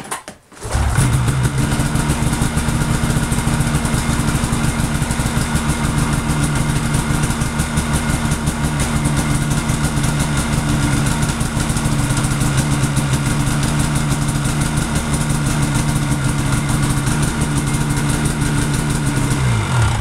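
A Polaris RMK snowmobile's two-stroke engine catches under a second in and idles steadily, then cuts out suddenly at the very end as the new tether kill switch is tested.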